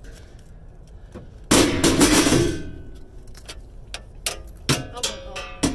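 Scrap metal clanking as it is handled and dropped: one loud clattering crash with a ringing tail about one and a half seconds in, then a string of sharper knocks and clinks.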